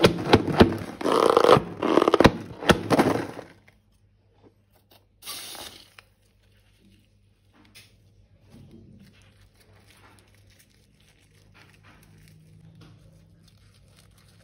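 A balloon and slime being handled by hand: a loud, dense stretch of rubbing and crackling with sharp clicks for about three and a half seconds, then only faint, scattered soft handling sounds.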